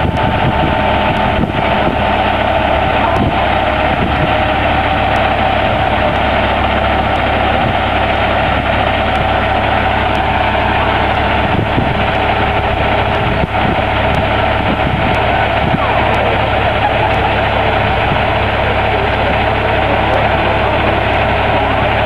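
Kenworth semi-truck's diesel engine idling steadily, a constant low rumble with a steady tone running over it.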